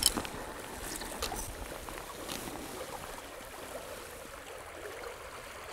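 River current running steady and even, with a short sharp click right at the start and a couple of faint ticks soon after.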